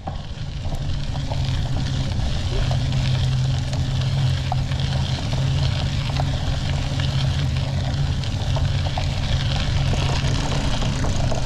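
Steady low rumble and hum of a bicycle rolling along a dirt road, with tyre noise and a few faint ticks.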